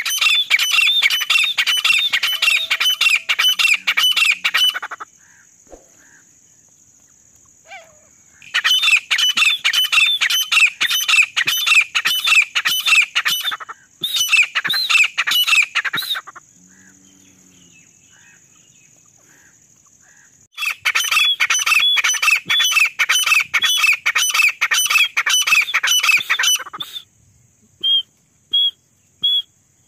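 Female grey francolin (desi teetar) calling: loud bouts of rapid, shrill repeated notes, three long runs of several seconds each, then a few single notes near the end.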